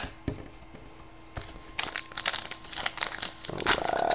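Foil trading-card pack wrapper being torn open and crinkled by hand, starting about two seconds in as a rapid run of crackles, after a few light clicks.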